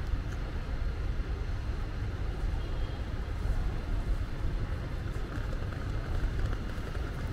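Street traffic ambience: a steady low rumble of vehicles, with no single event standing out.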